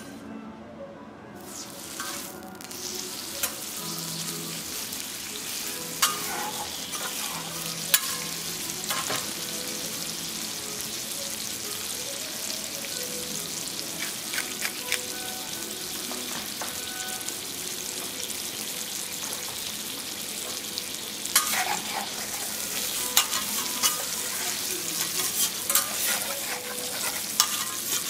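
Food sizzling on a hot teppanyaki griddle, the sizzle breaking out about a second in, with sharp clicks of metal spatulas on the iron plate that come thicker near the end.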